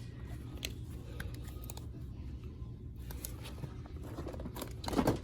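Steady low background hum with scattered faint clicks and rustles of handling. A louder, brief rustle comes near the end.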